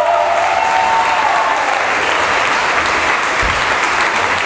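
Audience applauding at the end of a live song. The song's last held note fades out under the clapping in the first second or so.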